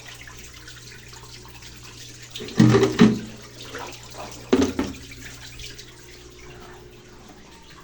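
Mabe Aqua Saver Green top-loading washing machine draining its wash water at the start of the spin cycle: water running out over a steady low hum. Two loud knocks or splashes come about two and a half seconds in and again near the middle, and the hum fades out late on.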